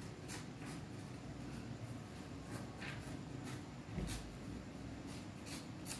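Quiet room tone with a faint low hum and a scattering of soft ticks and rustles from the handwritten paper sheets and the phone being handled.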